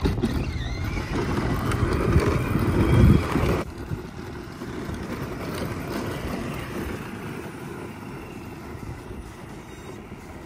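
Power Wheels ATV ride-on's 12-volt electric drive whirring as its wheels roll over asphalt. The sound is louder for about the first three and a half seconds, then drops abruptly to a quieter, steady run.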